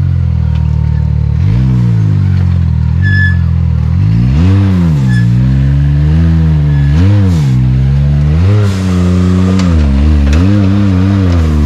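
A side-by-side UTV engine revving in repeated throttle blips, its pitch rising and falling about seven times between steadier running.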